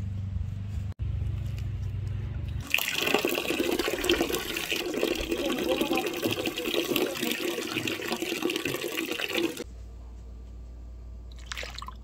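Water running from a tap for about seven seconds, starting about three seconds in and cutting off abruptly near ten seconds, with a low steady hum before and after.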